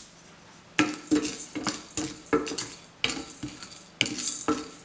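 Wooden spatula stirring dry lentils and seeds around a stainless steel pan as they dry-roast: a quick series of scraping, rattling strokes, about three a second, starting about a second in.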